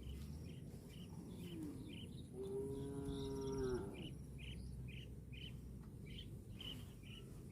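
A cow moos once, a long steady call of about a second and a half that drops in pitch at the end, preceded by a short faint lowing. A bird chirps repeatedly in the background.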